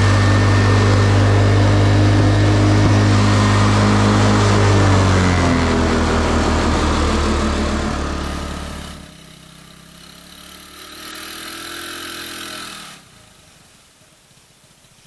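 ATV engine running under way, its pitch dropping about five seconds in as it slows. It then runs much quieter for a few seconds and stops abruptly near the end.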